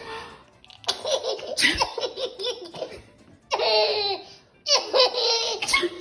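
Baby laughing hard in three loud bursts, with short pauses between them.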